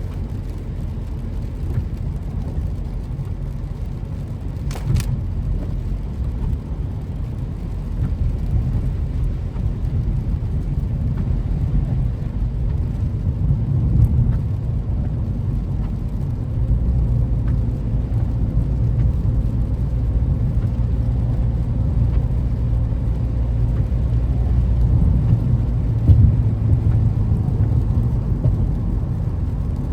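Steady low rumble of a car driving, road and engine noise, growing slightly louder over time, with a brief click about five seconds in.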